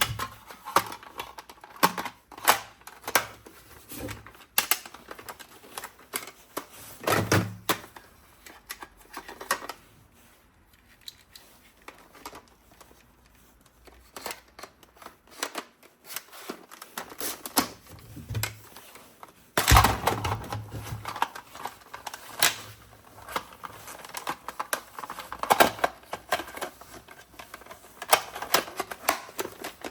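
Irregular clicks, taps and knocks of hands handling a plastic toy gun and its packaging, with a quieter stretch in the middle and the loudest knock about two-thirds of the way through.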